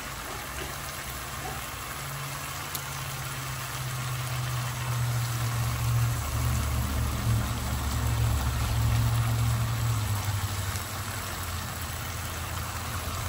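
A low, steady machine hum that grows louder through the middle and then eases off, over a faint even hiss.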